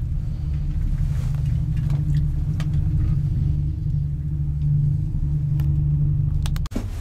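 Steady low rumble inside a moving aerial cable car cabin as it travels along its cable, with a few faint light ticks. It cuts off abruptly near the end.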